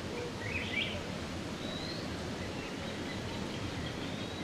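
Steady outdoor background noise with a few faint, short rising bird chirps: one near the start, one about two seconds in and one near the end.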